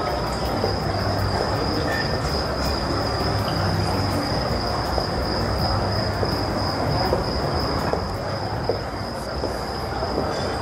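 Steady outdoor night ambience: a rumbling hiss with a constant high-pitched whine over it.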